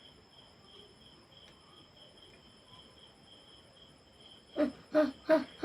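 Crickets chirping in a steady pulse of about three chirps a second, over a thin high insect drone. Near the end a person's voice breaks in with a quick run of five short, even bursts.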